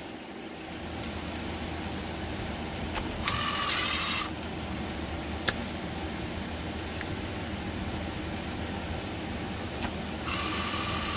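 Cordless driver running twice in short spurts of about a second each, backing the top-cover screws out of a Stihl MS 201 TC chainsaw, over a steady low hum.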